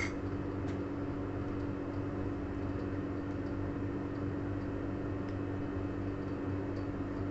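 Steady hum of a window air conditioner running, with a few faint light ticks.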